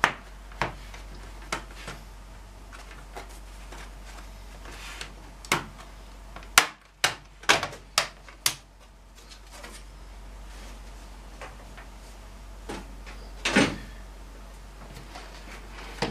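Plastic clips of a Toshiba C50 laptop's bottom case snapping loose as the cover is pried off by hand: scattered clicks, a quick run of about five sharp snaps in the middle, and one louder knock near the end.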